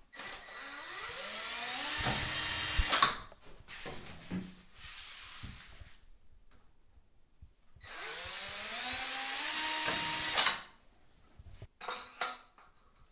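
Cordless drill boring through a PVC wall panel in two runs of about three seconds each, the first at once and the second about eight seconds in. Each is a whine rising in pitch as the motor spins up, then cutting off sharply.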